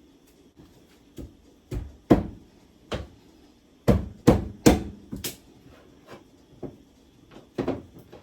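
A knife chopping through pumpkin onto a cutting board: about a dozen separate strikes at uneven spacing, with the heaviest blows coming in a quick run a little past the middle.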